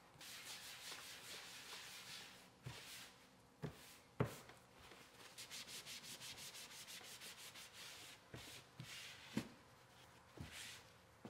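Faint rubbing of gloved hands working a wax finish into a leather knife sheath, in runs of quick back-and-forth strokes. A few light knocks, the loudest about four seconds in.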